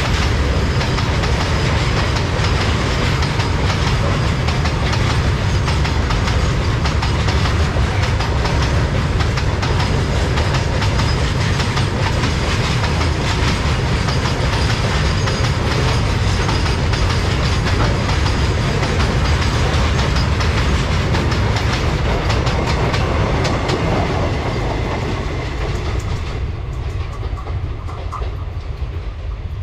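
Wagons of a loaded freight train rolling past, wheels clicking over rail joints over a steady heavy rumble. Near the end the high hiss drops away and the sound eases a little.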